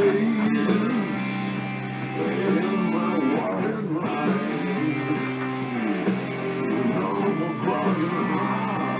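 Background music with guitar, playing continuously.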